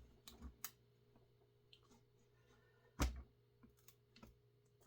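Light clicks and taps of Husqvarna 350 chainsaw parts and tools being handled during disassembly, with one louder knock about three seconds in.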